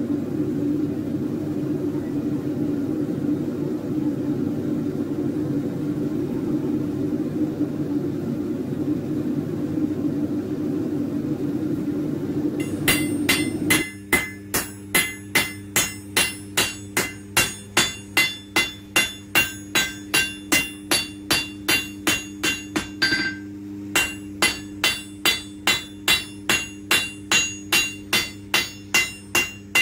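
A steady low hum, then from about 13 seconds in a hand hammer forging a red-hot steel knife blade on an anvil: regular blows about two a second, each ringing, with a brief pause about 23 seconds in.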